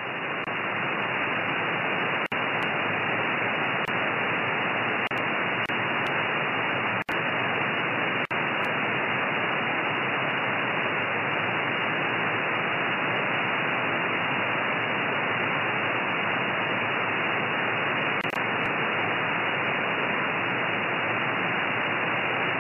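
Steady receiver hiss from an RTL-SDR and down-converter tuned to the 2320 MHz amateur band in upper sideband. The hiss is thin and cut off at the top by the sideband filter. It swells up in the first second and has a few brief dropouts. No signal is on the channel: the calling station has stopped transmitting and is listening.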